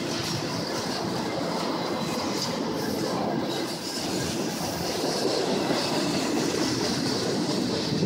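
Double-stack container freight train rolling past with steady wheel-on-rail noise; a diesel locomotive placed mid-train goes by about halfway through. No horn sounds.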